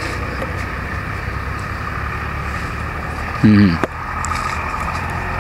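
Steady low background rumble with faint steady tones above it, and a man's brief vocal sound about three and a half seconds in.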